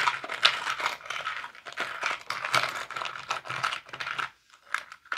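Small metal zodiac coins clinking and rattling together as fingers rummage through them in a small box, thinning to a few separate clicks near the end.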